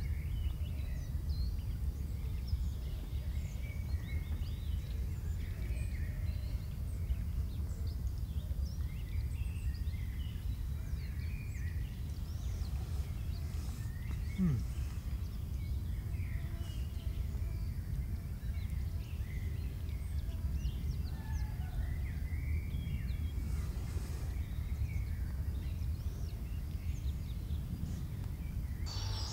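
Woodland birds chirping and calling, many short scattered calls over a steady low rumble, with one brief falling low tone about halfway through.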